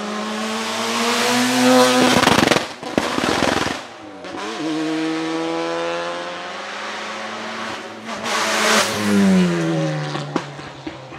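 The twin-turbo 13B two-rotor rotary engine of a Group C race car accelerating hard past, its note rising in pitch. About two seconds in comes a run of loud exhaust crackles and pops, and the note drops as it changes up. It then pulls away climbing in pitch again, and falls off-throttle near the end.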